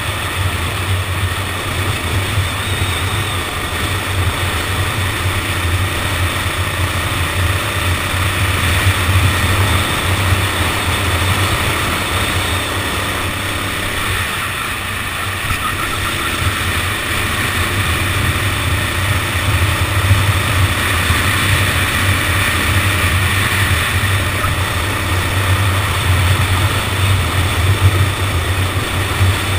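Go-kart engine running steadily, heard from on board the kart as it laps the circuit, with little rise or fall in pitch.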